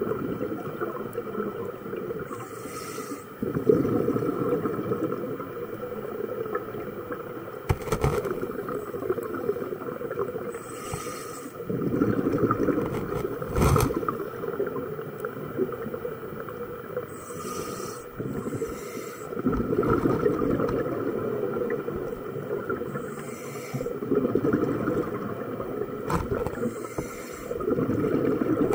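Scuba diver breathing through a regulator underwater: a short hiss on each inhale, then a longer, louder gurgle of exhaled bubbles, about every six to seven seconds. A few sharp clicks stand out.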